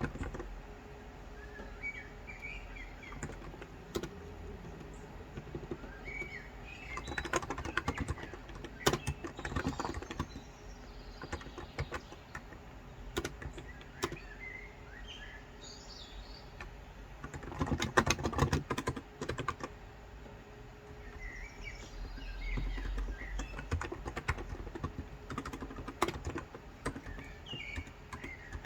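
Typing on a Cox Endeavor tenkeyless keyboard with 35 g electrostatic capacitive (non-contact) switches: runs of keystrokes in bursts with short pauses between them. Birds chirp in the background.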